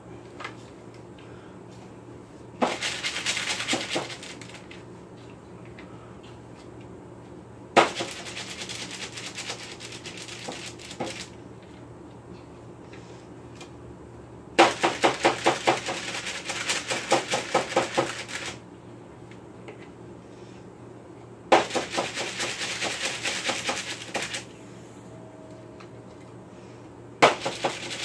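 Metal spoon scraping and clinking against a mixing bowl and the cookie sheet while scooping cookie dough, in five bursts of rapid strokes a few seconds each with quiet gaps between.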